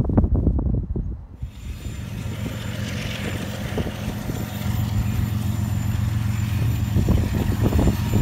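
Wind buffeting the microphone, then from about a second and a half in the steady low drone of approaching BNSF diesel locomotives, with a hiss over it; the wind buffets come back near the end.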